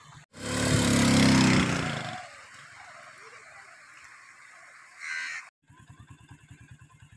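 A crow gives one short caw about five seconds in. Before it, near the start, there is a louder rush of noise about two seconds long.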